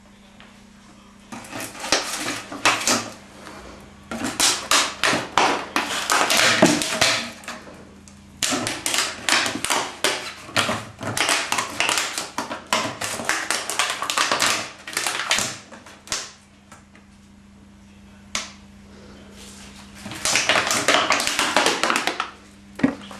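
A dog chewing and crushing an empty plastic water bottle: several bursts of rapid crackling and crinkling plastic, separated by short pauses.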